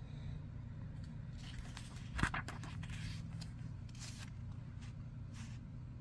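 A page being turned in a small guidebook: a paper rustle with a sharp flick about two seconds in, then lighter paper brushes, over a steady low background hum.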